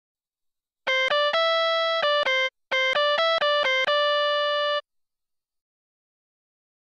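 A short synthesized keyboard jingle: two quick melodic phrases of clean, bright electronic notes, ending a little before five seconds in.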